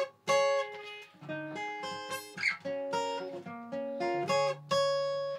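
Guitar playing a short phrase of about six plucked chords and single notes, each left to ring. It is trying out a line that stays on one note instead of descending.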